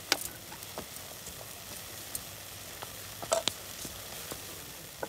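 Food frying in a pan, a steady sizzle, with a few sharp clicks of utensils, the loudest just after the start and two close together about three and a half seconds in.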